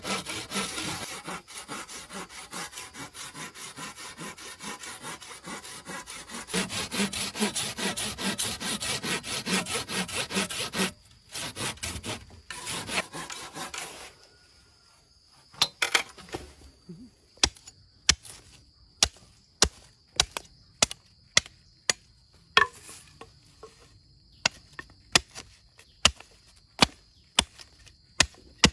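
Hand saw cutting through wood in quick, even back-and-forth strokes, which stop about halfway. Then single sharp chopping knocks on wood, one every second or so.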